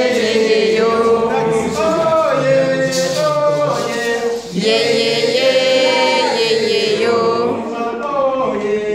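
Voices singing a chant without drums, in sung phrases with one long held note past the middle.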